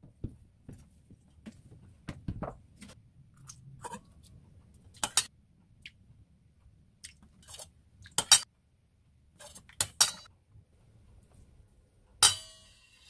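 Metal spoon clinking against a stainless steel mixing bowl and bottles being handled while seasonings are measured into the bowl: scattered sharp clinks and clicks, the loudest about eight seconds in, with a brief scraping burst near the end.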